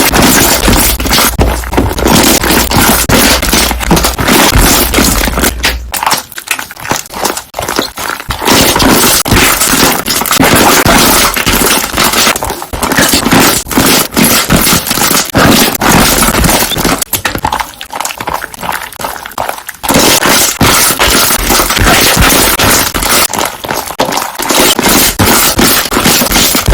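Slime being squeezed and pressed so that trapped air bubbles pop in a loud, dense, rapid crackle, the harsh 'construction-site' style of slime bubble sound. The popping thins out and drops in level twice, about six to eight seconds in and again about seventeen to twenty seconds in.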